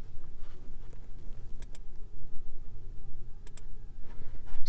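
Low steady hum of a 2011 Dodge Charger, with two faint clicks, one about two seconds in and one near three and a half seconds.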